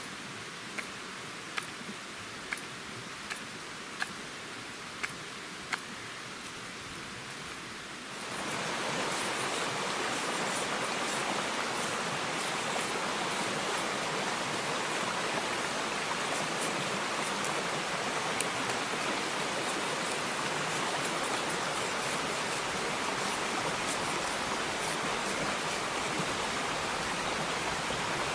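A knife shaving a stick of firewood in short, sharp strokes, about one a second. About eight seconds in, the steady rush of a stream over rocks takes over.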